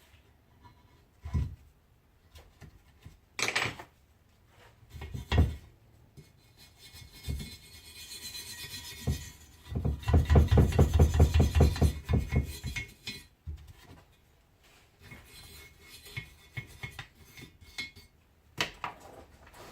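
Small metal hook tool picking and scraping at a motorcycle engine casing's mating surface, clearing out old gasket material and dirt. Scattered clicks and taps, then a few seconds of quick back-and-forth scraping a little past the middle, the loudest part.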